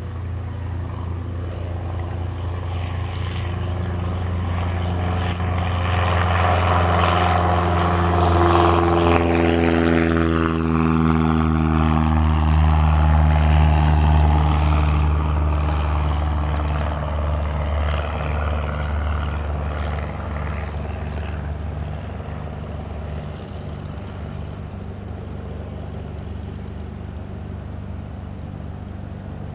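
Cessna 172N Skyhawk's four-cylinder engine and propeller at full takeoff power: a steady drone that grows louder as the plane rolls and lifts off. It drops in pitch as it passes about ten seconds in, then fades as it climbs away.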